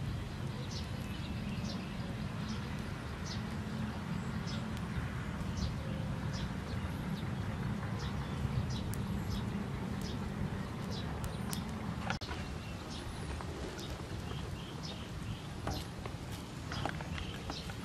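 Outdoor ambience: a steady low rumble with scattered short, high chirps about every half second to a second, and a few sharper clicks near the end.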